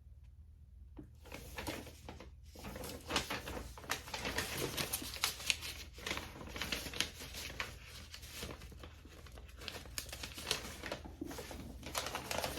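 Paper and packaging rustling and crinkling as they are handled, with many small clicks and taps; quiet for about the first second.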